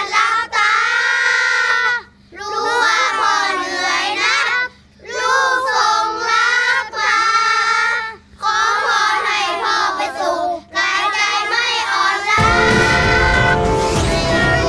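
A song sung by children's voices, in phrases broken by short pauses. About twelve seconds in, a louder instrumental music cuts in and takes over.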